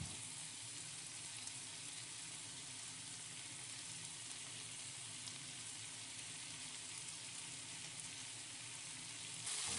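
Seekh kebabs sizzling quietly and steadily in oil in a frying pan over a medium gas flame.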